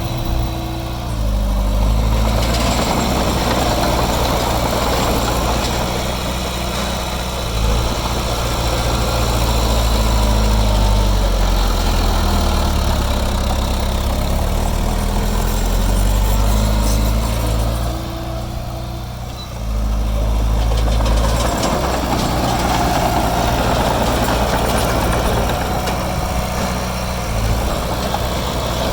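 Heavy diesel engine of earthmoving machinery running, its pitch rising and falling with the load, with two brief drops in loudness, one about a second in and one near the two-thirds mark.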